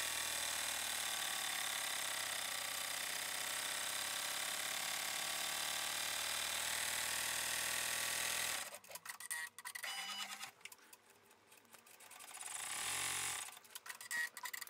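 Baby Lock Enterprise ten-needle embroidery machine running steadily as it sews a satin-stitch border around appliqué frames. It stops abruptly about eight and a half seconds in, followed by a few brief, fainter sounds.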